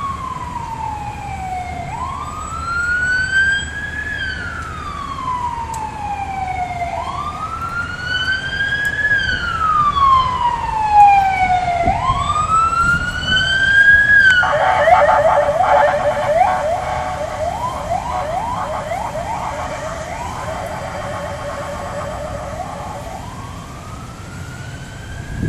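Emergency vehicle siren sounding in a slow wail, each rise and fall taking a few seconds. About halfway through it switches to a rapid yelp for several seconds, then goes back to a slow rise near the end.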